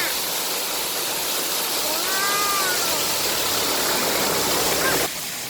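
Waterfall and river water rushing in a steady, dense noise, with a brief pitched call about two seconds in. The rushing drops abruptly about five seconds in.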